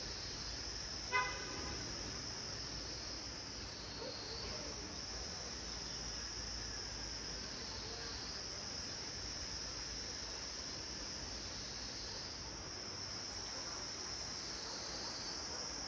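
Steady high-pitched insect chorus that swells and fades every couple of seconds, with one short vehicle horn toot about a second in.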